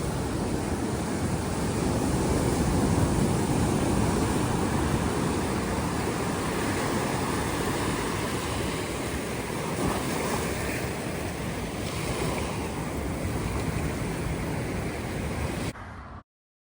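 Ocean surf washing on the beach, a steady rushing noise with wind buffeting the microphone. It cuts off suddenly near the end.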